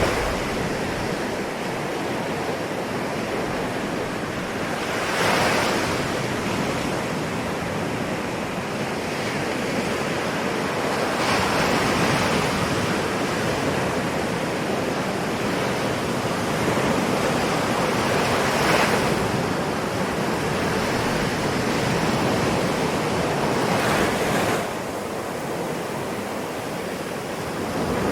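Ocean waves breaking and washing on the shore in a continuous rush, swelling louder roughly every six seconds as each wave breaks.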